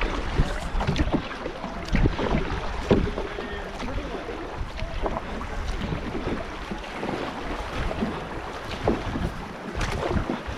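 Canoe being paddled on a river: water splashing and rushing with irregular knocks, and wind buffeting the microphone.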